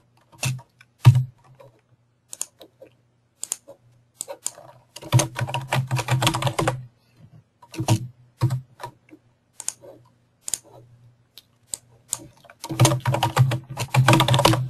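Typing on a computer keyboard in bursts, the longest about five seconds in and again near the end, with scattered single clicks in between.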